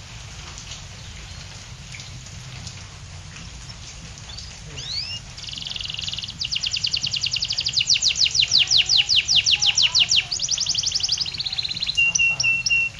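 Canary singing a long, unbroken song over a steady hiss of rain. About five seconds in it starts with rising notes and a buzzy trill, then runs through a long series of fast falling notes at about six a second, a rapid trill, and a held high note near the end.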